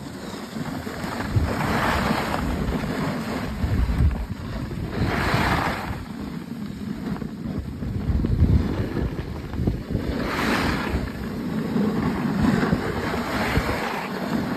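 Wind buffeting the microphone while skiing downhill, with swells of hissing every few seconds as the skis scrape across the snow.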